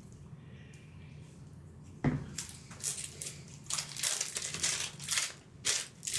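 Plastic shrink wrap being torn and crinkled off decks of cards: a sharp rip about two seconds in, then repeated irregular crackling.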